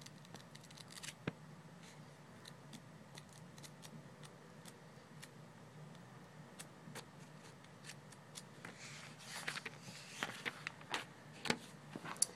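Pages of a thick paper catalogue being flipped through by hand: a run of small crisp paper ticks and flicks, then louder rustling swishes of pages being turned near the end. A faint low hum lies underneath.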